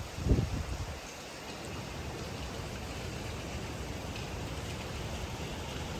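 A gust of wind buffets the microphone and dies away within the first second. After it comes a steady hiss of typhoon rain.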